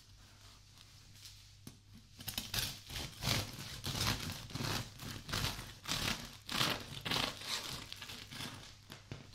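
A bread knife sawing through the thick, floured crust of a large round miche, the crust crackling and splitting with each stroke. The sawing starts about two seconds in and goes on in quick back-and-forth strokes, about two a second, until near the end.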